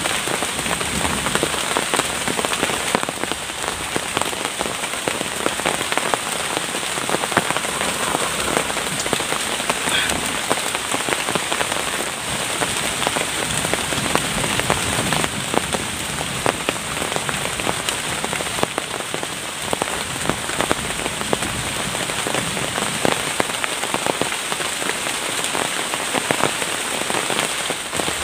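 Steady rain falling in the forest, with many close drops ticking on leaves and ground.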